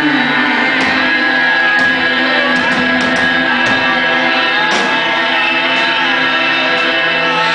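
Live rock band playing loud: electric guitar, drums with cymbal crashes, and a singer's vocal.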